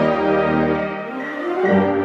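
Brass band with sousaphones playing sustained chords over a low bass line. The sound thins briefly just past halfway, and a new chord comes in near the end.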